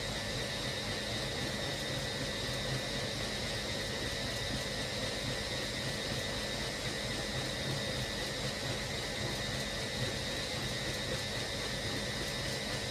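Hoover Logic washing machine running through its Cotton 60 programme: a steady mechanical whir with a constant high motor whine, the stage just before the second rinse.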